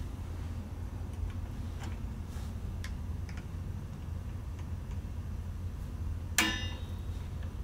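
Hand tools working steel return springs on a drum-brake shoe assembly: scattered small metal clicks and taps, then one sharp metallic clink that rings briefly about six and a half seconds in, over a steady low hum.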